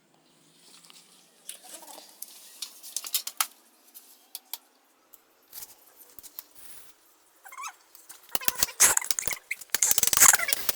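Metal tools clicking and clattering against a bicycle's wheel parts as it is dismantled: scattered light clicks and scrapes, then a dense, loud run of sharp clanks near the end.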